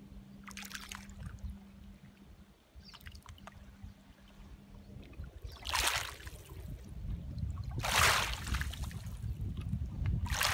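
Small lake waves lapping on a pebble shore. Each wave washes in with a short hiss over the stones. The first is faint, and the louder ones come in the second half, about two seconds apart.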